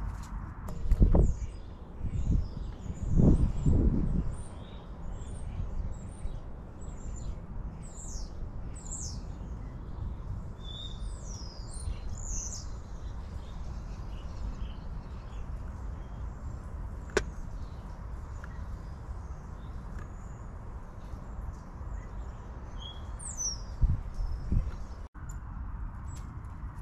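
Garden songbirds chirping and calling in quick, overlapping short notes. A few low thuds come about a second in, a couple more around three to four seconds in, and another pair near the end.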